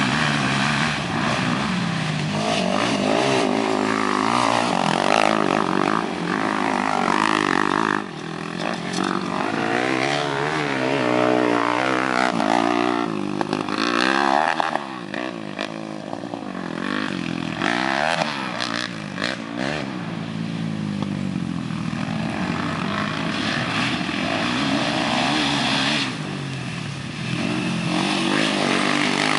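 Several quad bike (ATV) engines revving and running on a dirt track, their pitch rising and falling as they accelerate and back off, overlapping one another.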